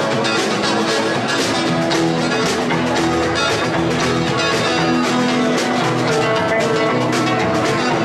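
Live rock and roll trio playing an instrumental passage: electric and acoustic guitars over a drum kit keeping a steady beat.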